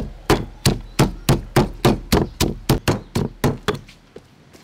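Pestle pounding chili and garlic in a stone mortar: steady thuds about three a second, dying away and stopping about four seconds in.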